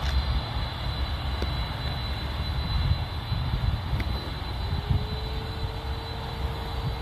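Jet airliner engines running: a deep, steady rumble with a steady high whine over it. A fainter, lower whine comes in about four and a half seconds in and slowly rises in pitch.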